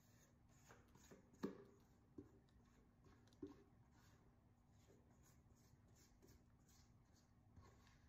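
Near silence, with faint scraping of a silicone spatula against a stainless steel mixing bowl as thick cake batter is poured out, and three soft knocks in the first few seconds.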